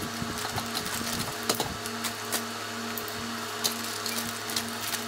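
Plastic packaging rustling and crinkling, with scattered small clicks, as a car-stereo dash kit is taken out of its bag. A steady low hum runs underneath.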